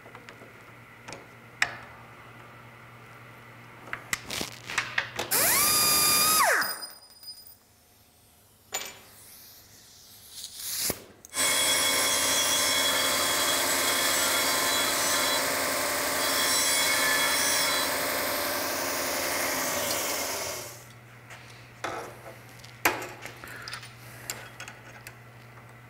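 Electric bench disc sander grinding a steel piece, a steady loud grinding that runs for about nine seconds in the middle and then stops. A shorter loud machine burst comes about five seconds in. Small clicks of hand tools being handled on a steel workbench come at the start and near the end.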